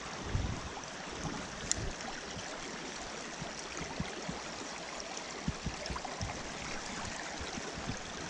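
Small rocky trout stream flowing, a steady rush of water, with a few faint low knocks and one sharp click a little under two seconds in.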